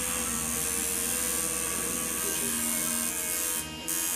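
Tattoo machine buzzing steadily, an electric hum whose tone shifts slightly as it works, with a short dip near the end.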